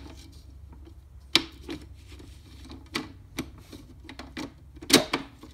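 Plastic trays of a round stacking food dehydrator clacking and rubbing as a tray is twisted and pressed to seat it on the stack: scattered sharp clacks, the two loudest close together near the end. The tray won't sit snugly and stays loose.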